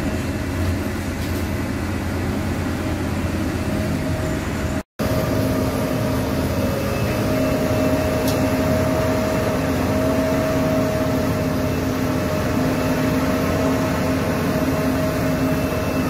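Heavy diesel engines running steadily at road resurfacing work: first a tipper lorry, then, after a brief cut, an asphalt paver. The paver part carries a constant tone over the engine noise.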